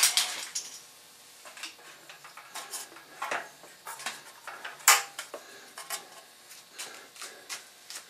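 Scattered light metallic clinks and taps from metal parts and wire being handled on a small gasoline engine. They come at irregular times, and the sharpest clink falls about five seconds in.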